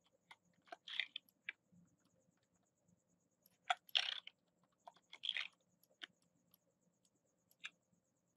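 Faint, scattered clicks and taps of a computer mouse and keyboard, with short clusters of quicker, louder clicks about a second in, around four seconds and again past five seconds.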